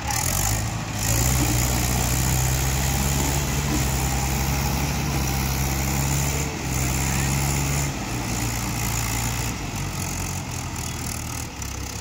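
Two Mahindra 575 XP Plus tractors' four-cylinder diesel engines labouring under load as they pull against each other on a tow rope. A loud, steady low engine drone that eases off about eight seconds in.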